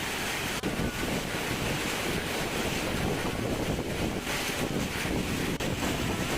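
Storm wind blowing hard across the microphone: a steady rushing noise that briefly drops out about half a second in and again near the end.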